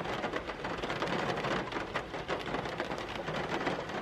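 Heavy rain falling on a car's window glass, heard from inside the car: a steady, dense patter of many drops.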